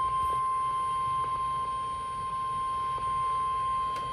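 NOAA Weather Radio 1050 Hz warning alarm tone: one steady, unbroken tone over a faint radio hiss, the signal that a warning message is about to be broadcast.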